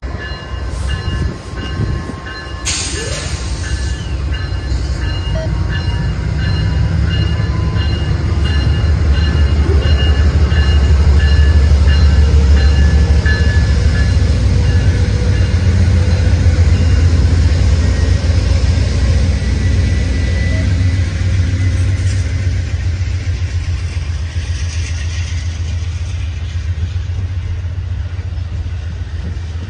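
Amtrak Southwest Chief passenger train passing: two GE P42DC diesel locomotives go by with a heavy engine rumble that is loudest about ten to seventeen seconds in, then the steadier rolling noise of double-deck Superliner cars. A bell rings repeatedly through the first half.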